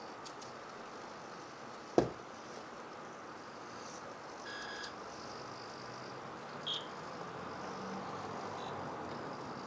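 Robot worm's small motors whirring steadily as it crawls, with one sharp click about two seconds in and short electronic beeps a little after the middle.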